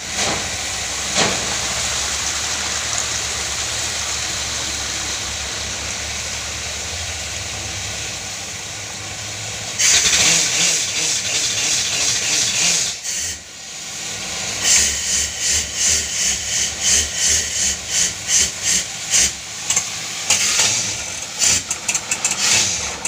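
Borewell drilling rig blowing water and rock slurry up out of the bore at the well head: a steady rushing hiss over the rig's engine running. About ten seconds in the hiss grows louder, and later it comes in rapid surges, about two a second.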